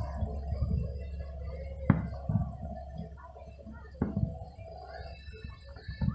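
Aerial fireworks shells bursting in the distance: two sharp booms about two seconds apart.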